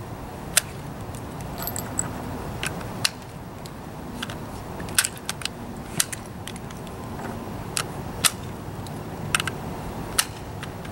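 Rifle cartridges being pushed one at a time into an AR-15's fixed magazine from the top, through the opened action: a series of sharp metallic clicks, roughly one a second, as each round snaps past the feed lips.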